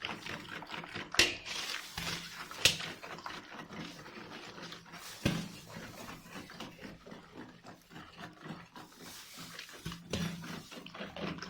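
Eggs and sugar being beaten by hand in a bowl: a quick run of small stirring ticks, with a few sharper knocks of the utensil against the bowl about one, two and a half and five seconds in.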